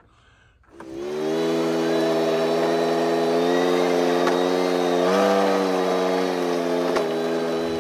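A vehicle's engine comes in about a second in, rising briefly in pitch, then runs steadily as it drives along.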